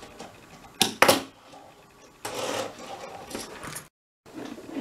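Tech Deck fingerboard flipped on a desk, clacking down with two sharp clicks about a second in, followed by a short rustle.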